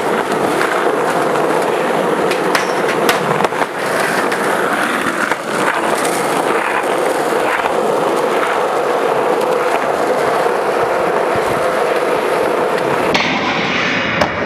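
Skateboard wheels rolling steadily over rough asphalt, with a few sharp knocks from the board.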